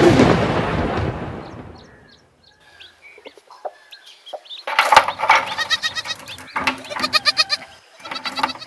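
Rain noise fading out, then a few faint bird chirps, then from about five seconds in chickens clucking and cackling in quick, loud repeated calls.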